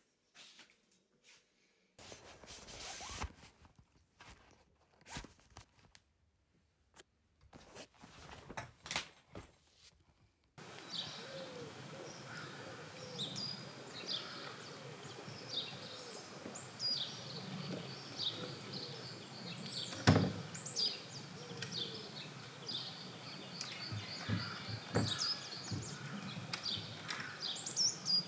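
A few scattered clicks and knocks with silence between them. About ten seconds in, woodland ambience starts, with many small birds chirping and singing in quick repeated calls, and one sharp knock a little past the middle.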